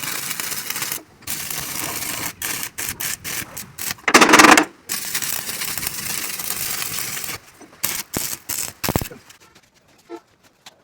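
Stick (arc) welder's arc crackling and sizzling in short runs with brief breaks, loudest just after four seconds, during a weld repair on a tractor mudguard. About seven seconds in the crackle stops, and a few separate sharp clicks follow.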